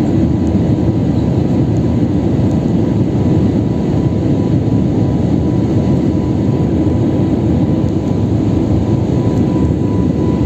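Steady engine and airflow noise of a jet airliner, heard from inside the passenger cabin while climbing after takeoff, with a faint steady whine over the low rush.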